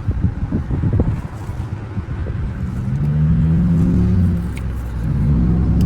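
An engine running, rising in pitch about two seconds in and then holding steady. Before it comes a stretch of rough rustling noise with small knocks.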